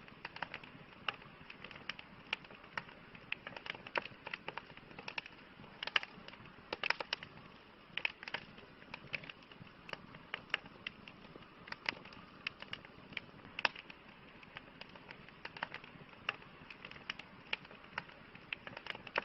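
Bonfire burning: a steady hiss of flames under irregular sharp crackles and pops of burning wood, at times several in quick succession.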